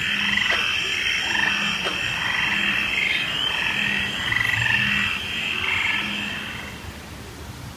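Frogs croaking in a chorus of repeated calls over a steady high hiss. The sound drops away about seven seconds in.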